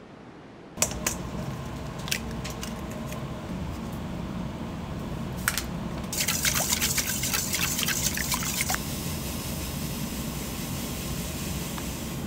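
Kitchen sounds: a steady low hum with a few sharp clinks, then about three seconds of splashing, running liquid around the middle.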